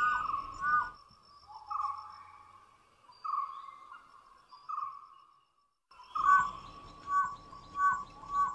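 Dholes whistling: short, high whistles with a downward flick, repeated about twice a second, then a few longer, spaced whistles, a brief break, and the quick series again. It is the contact call an adult gives to bring the pups to a kill.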